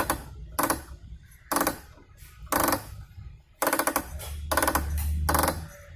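Metallic clunks from a top-load washing machine's gearbox as it is worked, each with a short ring. They come about once a second, then in a quicker cluster of several, over a low hum. The gearbox is judged faulty.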